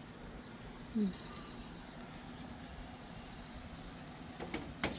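Quiet background with a faint steady high hiss. A brief falling voice sound about a second in, then two or three sharp clicks or taps near the end.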